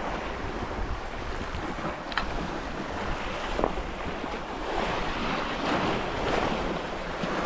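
Sea waves washing and breaking over shoreline rocks, with wind buffeting the microphone.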